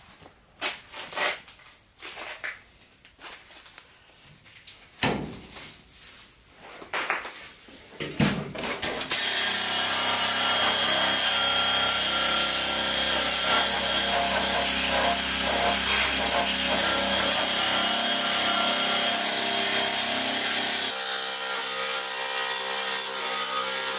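Scattered light clicks and rustling, then about nine seconds in a DeWalt cordless drill with a wheel attachment starts up and runs steadily, scouring rust off a steel frame rail. The sound dips slightly in level near the end.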